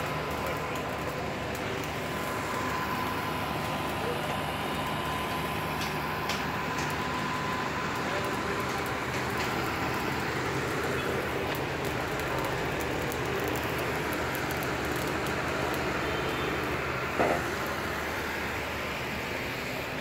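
Steady construction-site machinery noise: a continuous hum and rumble, with a steady high whine through the first half. There is one sharp knock near the end.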